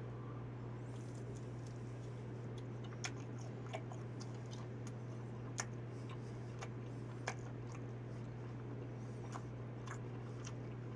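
A person chewing a bite of deep-fried, sauce-coated fermented skate (skate kkanpunggi), giving scattered short crunches and mouth clicks. Underneath runs a steady low hum.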